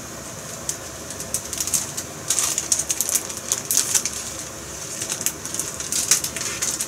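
Crinkling and rustling of plastic packaging being handled, in short irregular spurts.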